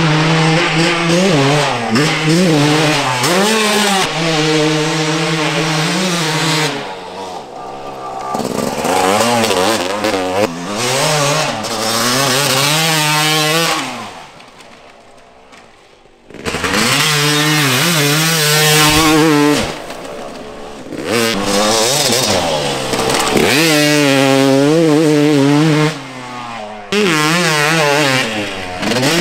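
Yamaha YZ250 single-cylinder two-stroke motocross engine ridden wide open, its pitch climbing and falling again and again as the rider revs through the gears. The sound fades nearly away about halfway through, then returns at full throttle.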